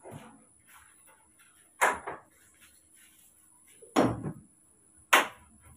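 Claw hammer striking and prying nails out of a wooden post: three sharp knocks, about two, four and five seconds in.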